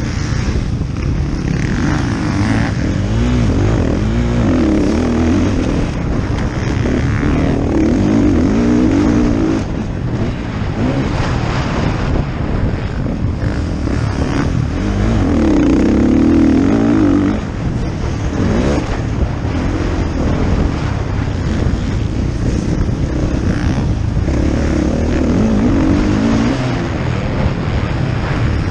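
Motocross bike engine revving hard, its pitch climbing and dropping again and again as the rider accelerates, shifts and brakes around the track, loudest about halfway through.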